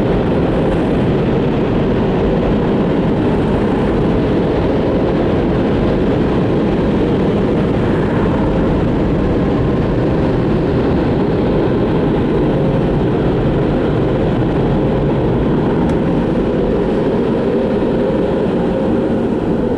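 Automatic car wash machinery running with a loud, steady roar.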